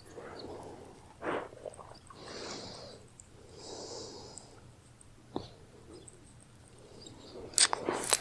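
Rabbit breathing and snuffling close to the microphone: soft puffs about a second long, with a sharp click about five seconds in and a few quick clicks near the end.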